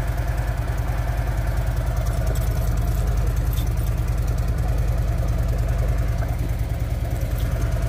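Harley-Davidson Milwaukee-Eight 107 V-twin idling steadily with an even, regular pulse.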